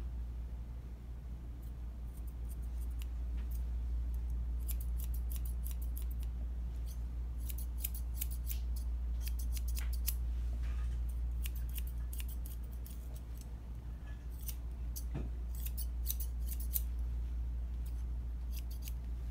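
Grooming shears snipping through a Bichon puppy's coat, in quick runs of crisp snips with short pauses between them. A steady low hum lies underneath.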